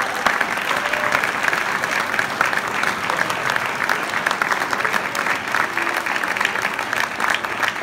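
Audience applauding, a dense steady clatter of many hands clapping that holds evenly without a break.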